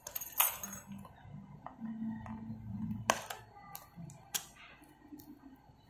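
Cardboard trading-card booster box being handled and opened by hand: a few sharp clicks and taps, with soft scraping and rustling as fingers work at its edges.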